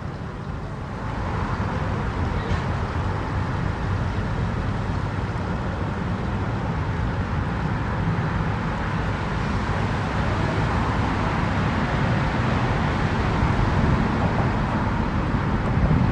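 Steady engine rumble with a noisy wash, growing louder about a second in and then holding steady.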